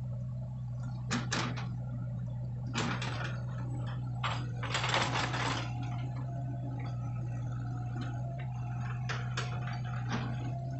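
Excavator diesel engines running steadily, with several short metallic clanks and rattles from the tracks and bucket as the bogged-down machine works its boom, the longest clatter about five seconds in.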